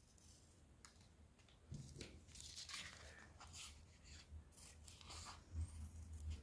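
Faint, irregular snipping of scissors cutting sheets of EVA craft foam.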